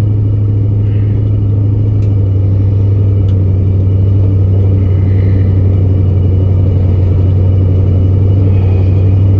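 Old pickup truck running as it drives, a steady low rumble.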